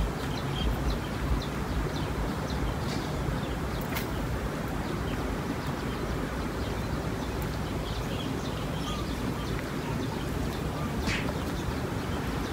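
Small birds chirping in short, scattered calls over a steady low background rumble, with one sharp click about four seconds in.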